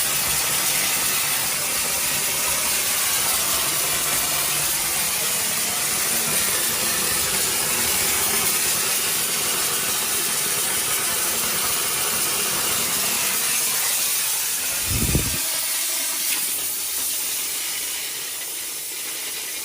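Steam hissing steadily from the gun of an air-conditioner cleaning machine running on its steam setting at about 120 degrees. A short low thump about fifteen seconds in, and the hiss eases off toward the end.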